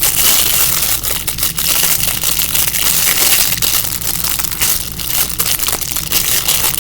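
Plastic packaging crinkling and crackling continuously as hands work at pulling a squishy fidget toy's wrapper open.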